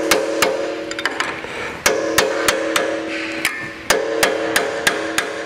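Hammer tapping a punch against the top-bearing locking collar of a mixing auger, about three sharp metal blows a second, driving the collar tight. The harder blows, about two and four seconds in, leave the steel bearing housing ringing.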